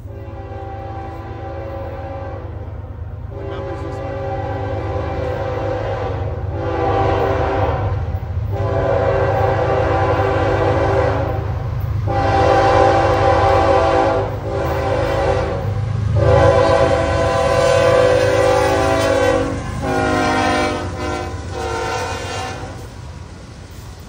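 Diesel freight locomotive's air horn sounding a grade-crossing warning: about eight long and short blasts with brief gaps, growing louder as the train nears, over the low rumble of the locomotive engines.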